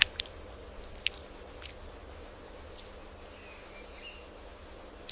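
Faint outdoor nature ambience with scattered light clicks and ticks, and a few faint short bird chirps a little past halfway.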